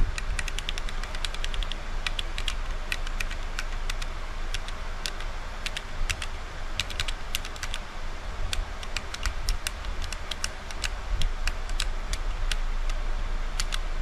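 Keystrokes on a 20-key macro pad fitted with Akko Sakura switches and Akko Prunus Lannesiana keycaps: an irregular run of sharp key clacks, quick and dense in the first couple of seconds, then more spaced out, over a steady low hum.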